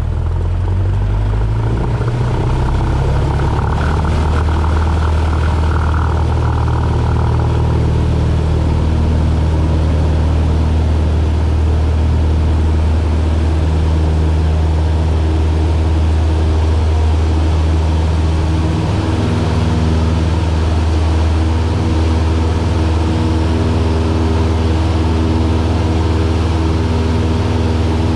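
Light Cessna aircraft's piston engine and propeller running loud and steady; the engine note rises over the first couple of seconds as power comes up, then holds.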